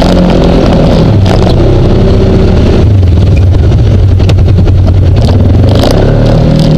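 Off-road vehicle engine running under throttle on a dirt trail. Its engine speed rises and falls, holds a lower steady note through the middle and picks up again near the end. Scattered sharp clicks and knocks sound over it.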